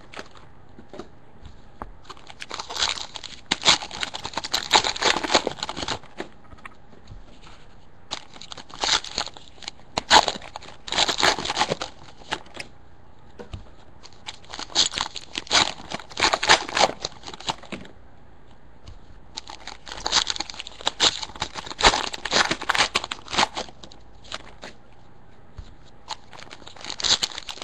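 Foil trading-card pack wrappers crinkling and tearing open while cards are handled, in several bursts a few seconds long with short pauses between.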